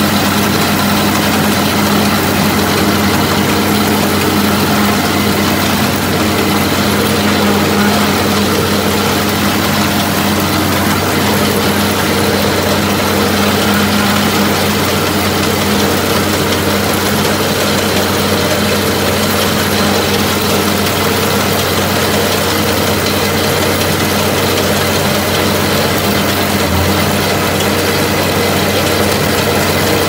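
1974 Case 1070 tractor's diesel engine running steadily under load, together with the running machinery of a Vermeer 605F round baler picking up hay.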